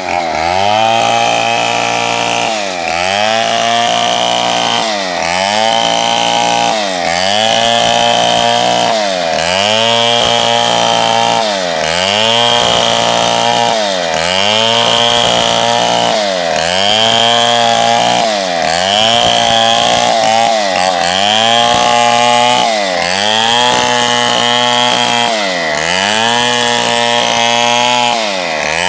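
Shinsaw chainsaw running at high revs while ripping lengthwise through a large acacia log. The engine pitch dips and recovers about every two seconds as the chain bites into the wood under load.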